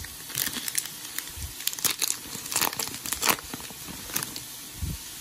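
A foil Pokémon booster pack wrapper being torn open and crinkled by hand, a quick run of sharp crackles over the first three seconds or so, then quieter rustling with a low thump near the end.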